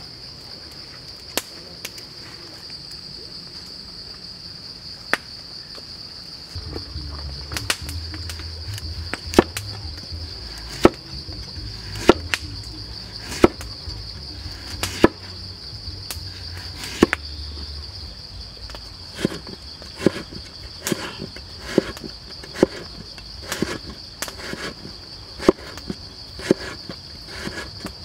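Cleaver chopping a carrot on a chopping board: single sharp cuts about every one and a half seconds, then quicker strokes in the second half as it is cut into strips. A steady high buzz of insects runs underneath.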